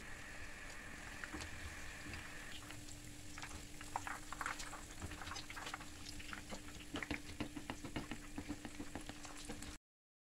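Hot oil sizzling and crackling with many small pops as breaded, skewered sticks deep-fry in a pan, over a steady low hum. It cuts off abruptly near the end.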